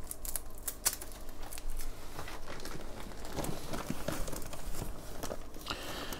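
Newspaper packing and plastic fish bags rustling and crinkling as hands rummage through a shipping box, with irregular crackles and small clicks.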